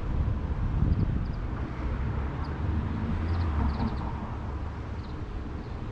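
Outdoor ambience: a steady low rumble that swells during the first few seconds and then eases, with a few faint, short high chirps over it.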